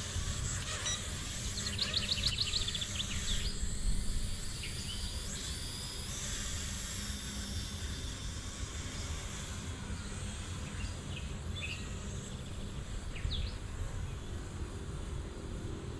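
Outdoor ambience: a steady low rumble of wind on the microphone, with birds chirping, a quick trill about two seconds in and a few short chirps later.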